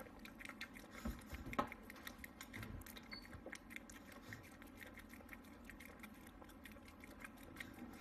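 Small dog lapping a thick green drink from a glass with its tongue: a faint, quick run of wet clicks.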